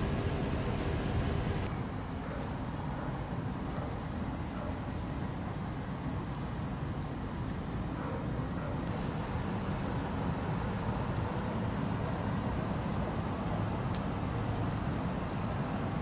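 Steady low rumbling outdoor background noise with a faint high whine, shifting slightly with each shot change.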